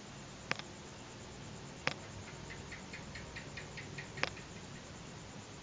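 Three sharp clicks of plastic beads and nylon thread being handled as the beaded figure is worked. From about two seconds in, a faint run of about ten quick high chirps, about five a second.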